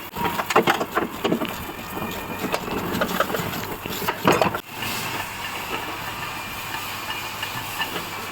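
A few knocks and clatter, then from about halfway a steady machine hum with a hiss.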